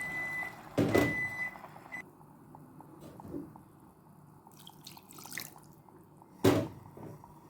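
Pots and utensils being handled at the stove: two loud clunks, one about a second in and one near the end, with light clicks and rattles between. A steady high thin tone sounds at the start and stops about two seconds in.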